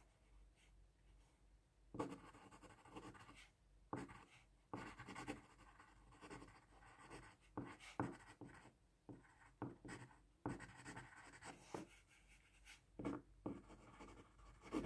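Pen writing on paper: faint, irregular scratching strokes that start about two seconds in.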